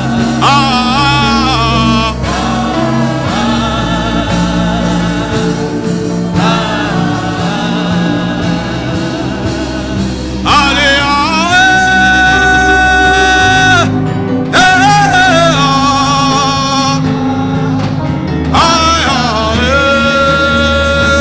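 Gospel song: sung vocals over a steady bass line, with long held notes partway through and near the end.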